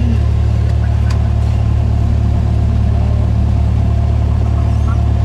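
Cessna 172's piston engine and propeller at low taxi power, a steady drone heard inside the cabin.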